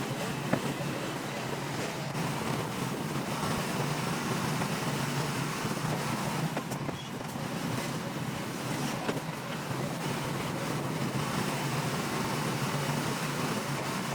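Bulldozer's diesel engine running steadily, with a couple of faint knocks.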